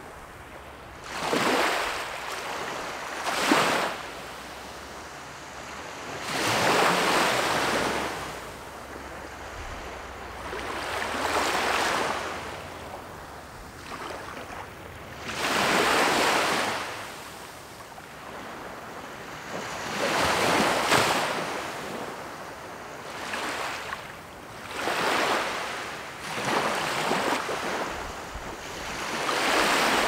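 Small waves breaking and washing up a sandy beach, with about ten surges in all. Each one swells into a hiss of foam and fades a few seconds later.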